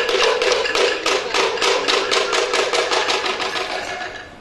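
Rapid, even strokes on hollow-toned wooden percussion, about five a second, quickening slightly and dying away near the end.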